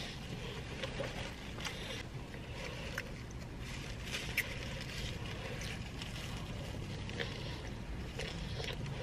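Close-up eating sounds of someone biting and chewing a sub sandwich, with scattered light mouth clicks and rustles of the paper wrapper, over a steady low rumble of a car cabin.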